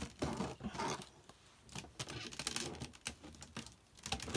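White PVC pipes and plastic elbow and tee fittings knocking and clicking as a pipe frame is handled and fitted together: a string of irregular sharp knocks.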